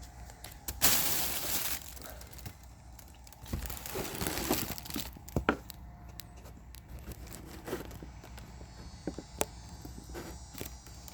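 Handling noise from a camera being picked up and set down: a loud rustling scrape about a second in, then scattered light clicks, taps and scrapes.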